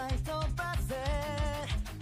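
Background music with a fast, steady drum beat under a melody line.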